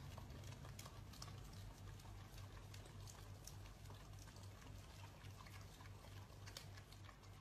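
Faint wet clicks and smacks of two dogs licking an ice cream cone, over a low steady hum.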